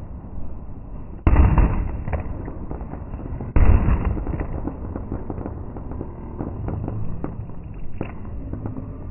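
Aerial fireworks bursting overhead: two loud booms a little over two seconds apart, each fading away over about a second, with scattered crackling of smaller bursts throughout.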